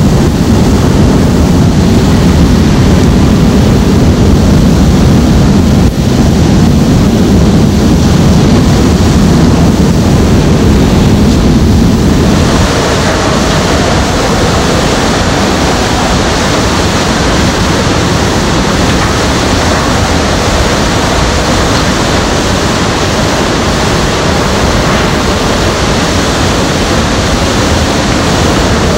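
Hurricane surf crashing and wind buffeting the microphone: a loud, steady roar heavy in low rumble. About twelve seconds in it changes abruptly to a thinner, hissing rush of hurricane-force wind.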